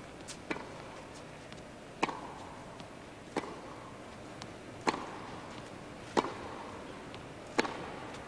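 Tennis ball struck back and forth with rackets in a baseline rally: a sharp pop about every one and a half seconds, six in all, with fainter ticks between them.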